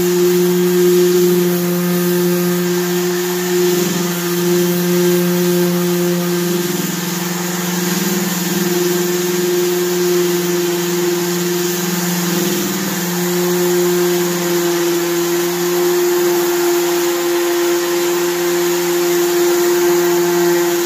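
Milwaukee random orbital sander running steadily with an 80-grit disc on a bare wooden stool top, stripping the worn clear coat. It gives a steady motor whir whose pitch dips briefly a few times.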